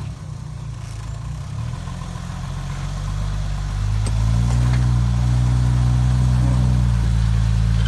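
Off-road Jeep's engine running at low revs, picking up in pitch and level about three to four seconds in and then holding steady. A single sharp click comes as the revs rise.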